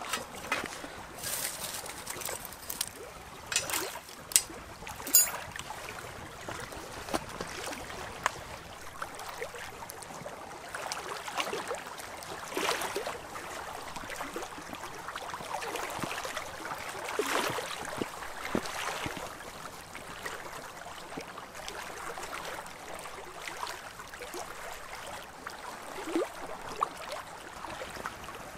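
Twigs crackling and popping in a wood fire, with sharp pops mostly in the first few seconds, over small lake waves lapping against a rocky shore that swell now and then.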